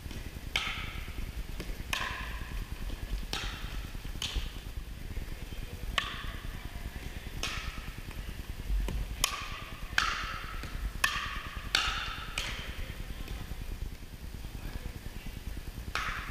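Pickleball rally: composite paddles popping a hollow plastic pickleball back and forth, each hit a sharp knock with a short echo off the gym walls. The hits come about every second or so, then quicken to a rapid volley exchange about nine to twelve seconds in, with one more hit near the end.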